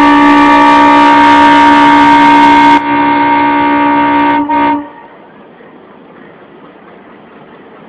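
Train horn held in one long, loud blast, with a short dip about three seconds in and another just before it stops, about five seconds in. After that only a steady, much quieter noise remains.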